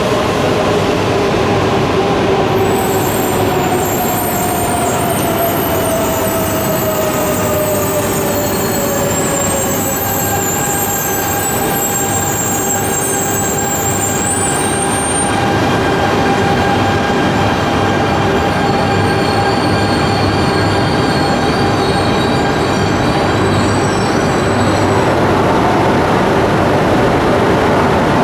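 E3 series Shinkansen train pulling into a platform and braking to a stop. Its motor whine falls in pitch as it slows, a high squeal from the brakes or wheels runs from a few seconds in until about halfway, and then a steady hum of the standing train remains.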